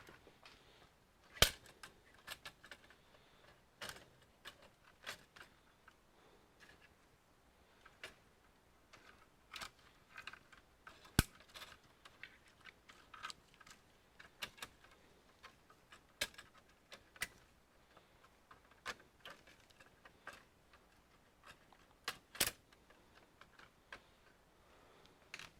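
Irregular clicks and taps of small parts and tools being handled while taking apart an all-in-one computer, with a few sharper knocks about a second and a half in, near the middle and near the end.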